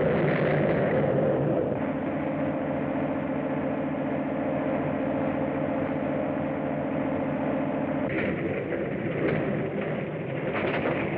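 Early-1930s open touring car engine running steadily at speed on a film soundtrack. About eight seconds in, it gives way to a rough rumbling with repeated knocks and crashes as a car goes off the road and tumbles down a hillside.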